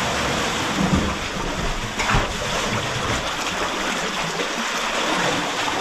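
Sea water washing and splashing close around the microphone, a steady noisy wash with brief surges about one and two seconds in.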